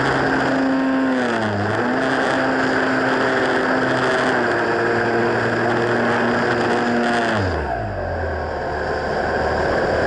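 Onboard sound of an Airfield 1400mm T-28 RC model plane's electric motor and propeller whining under throttle, with wind rushing over the camera. The pitch dips briefly about a second and a half in, then falls away sharply at about seven and a half seconds as the throttle is pulled back, and climbs again near the end.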